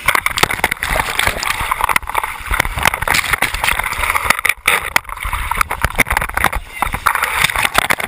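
Sea surf crashing over rocks and washing across the pole-mounted camera, a loud churning rush of water with a low rumble and many sharp knocks and buffets on the camera housing.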